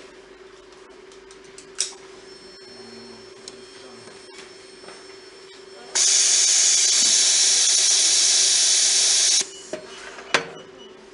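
Hot bar soldering machine letting out a loud hiss of compressed air for about three and a half seconds, starting and stopping abruptly. Under it runs a steady hum from the machine's fan, with a few light clicks and one sharp click near the end.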